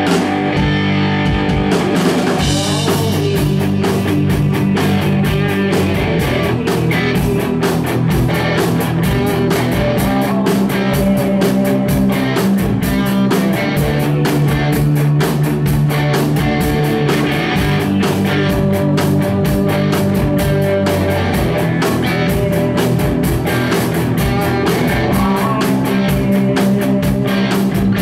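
Live rock band playing: electric guitar and bass over a drum kit, with a fast, even cymbal beat.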